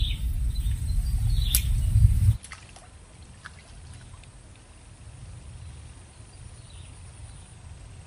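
Heavy low rumble on the microphone with a couple of sharp clicks; about two seconds in it drops suddenly to faint outdoor background noise.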